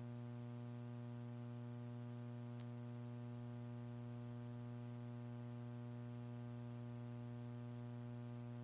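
Steady electrical mains hum on the audio feed, with one faint tick about two and a half seconds in.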